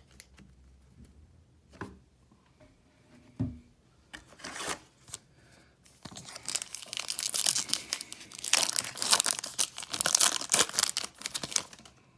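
Foil wrapper of a baseball card pack being torn open and crinkled: dense crackling that starts about four seconds in and is loudest over the second half, after a couple of soft knocks.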